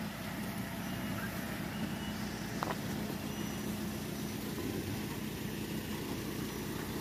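Daihatsu Gran Max pickup's engine idling steadily.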